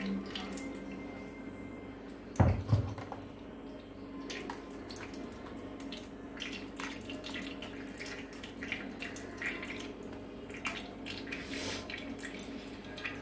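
Coconut milk trickling and dripping through a steel mesh strainer into an aluminium pot. A single thump about two and a half seconds in, then a spoon scraping and tapping against the strainer as the ground coconut pulp is pressed.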